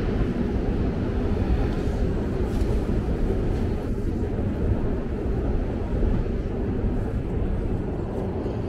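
Steady low rumble of a long metro escalator running, with no clear tones or breaks.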